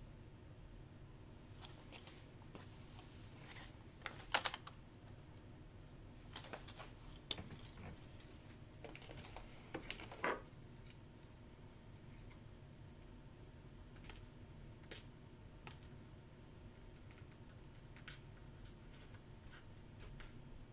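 Scattered small clicks, taps and rustles of hands handling things at close range, with a brief crinkly burst about four seconds in and another about ten seconds in.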